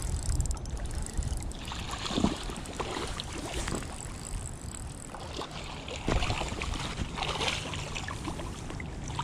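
A hooked smallmouth bass splashing and thrashing at the surface as it is reeled in close to the bank, with a few sharp knocks. Wind buffets the microphone with a steady low rumble.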